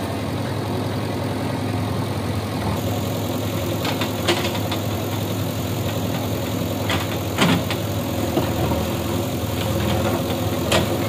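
Backhoe loader's diesel engine running steadily under load as its bucket pushes against a brick wall. A few sharp cracks of breaking masonry cut through, the loudest about seven seconds in.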